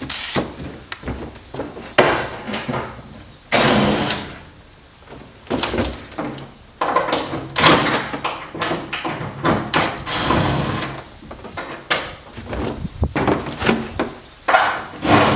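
Power drill-driver backing out the tailgate liner's Phillips screws in short runs. Knocks and rattles of the tool and screws being handled come in between the runs.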